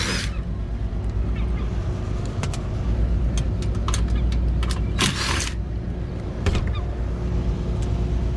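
Rooftop HVAC unit running with a steady low drone and hum, its blower moving air. A few sharp clicks and a short rush of noise come through about five seconds in.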